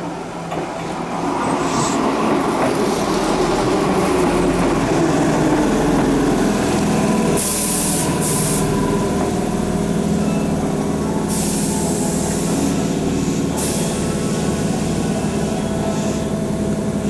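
Keihan 2200 series commuter train pulling in on the next track, its wheels rumbling as it slows, then several sharp hisses of air from the brakes as it comes to a stop. A steady hum with a regular low pulsing from the standing trains follows.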